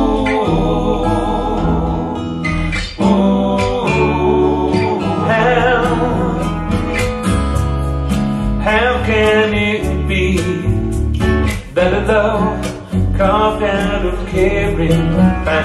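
A song with singing over a steady bass, played back through home-built three-way coaxial open-baffle loudspeakers fitted with Eminence PSD2002S compression-driver tweeters and 15-inch bass drivers.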